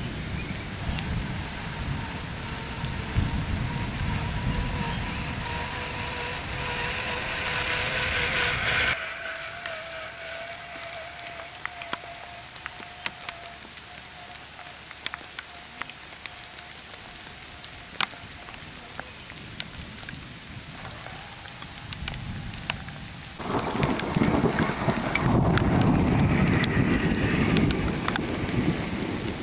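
Electric motor and gears of an RC4WD Trail Finder 2 scale crawler truck whining as it drives, over a heavy steady noise like rain. The heavy noise cuts off suddenly about nine seconds in, leaving the motor whine with scattered ticks. The noise comes back suddenly near the end.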